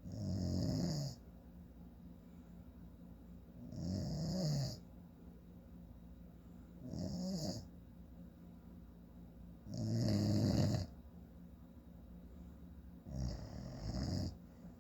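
A man snoring in his sleep: five snores, each about a second long, coming roughly every three seconds with quieter breathing pauses between.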